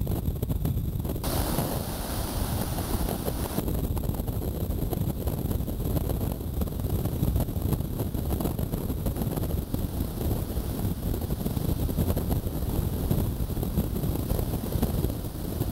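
Wind buffeting the microphone in a steady low rumble, over the hiss of breaking surf. A brighter hiss comes in suddenly about a second in and drops out again about two seconds later.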